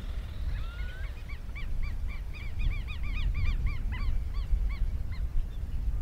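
Mixed flock of white-faced and black-bellied whistling ducks calling: many short, arched whistles in quick overlapping series. They start about a second in, are thickest in the middle and thin out near the end.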